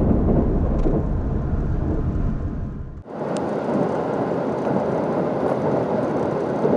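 Running noise of a JR Hokkaido KiHa 183 series diesel express heard from on board. For the first three seconds there is a heavy low rumble while another train passes close alongside. After an abrupt cut about three seconds in, the sound becomes a steadier rush of running noise with much less low rumble.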